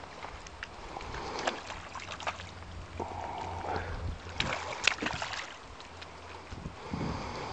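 Flowing river water with a low rumble of wind on the microphone. A few sharp clicks and knocks stand out, loudest about four and a half to five seconds in.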